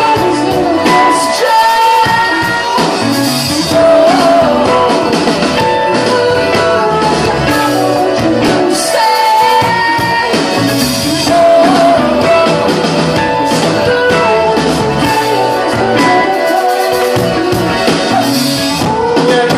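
Indie rock band playing live, with a sung lead vocal over guitar and a full band, recorded loud from among the audience.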